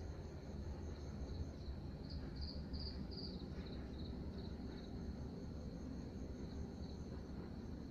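Night insects chirping in rapid, even pulses, two or three at different high pitches, with a louder run of chirps a couple of seconds in; a steady low hum lies underneath.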